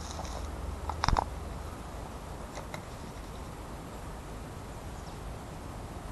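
Low, steady outdoor rumble from wind or handling noise on the microphone, with a short knock about a second in and a few faint clicks after it.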